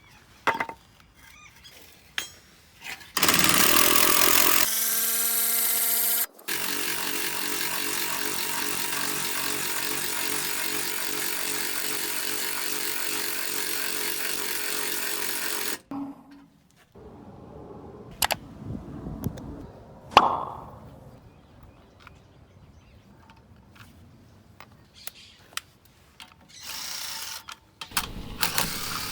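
Cordless impact driver cranking a car jack's screw through a homemade attachment: a couple of short runs, then one steady run of about nine seconds that cuts off suddenly. Scattered knocks and clanks follow.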